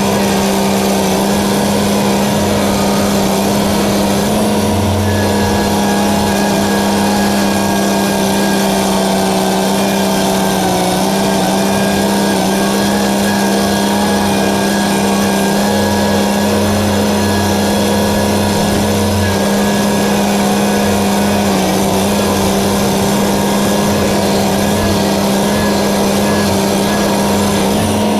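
Engine running steadily at a constant speed, a low, even drone that holds one pitch.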